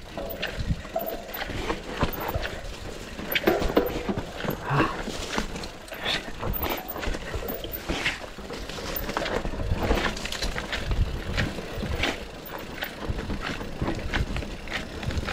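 GT Sanction enduro mountain bike descending a rough, rocky trail: tyres, chain and frame clattering over the ground in many irregular knocks and rattles over a rough rumble.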